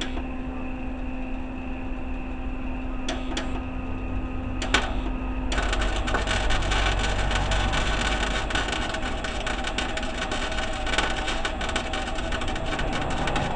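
Arc welding: two short crackling starts of the arc a few seconds in, then a steady crackling weld run from about halfway on, welding a steel engine mount bracket in place.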